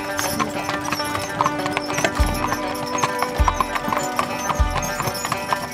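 Hooves of a pair of draft horses clip-clopping on pavement as the team pulls a wagon, with music playing over it. From about two seconds in, a deep beat in the music comes a little more than once a second.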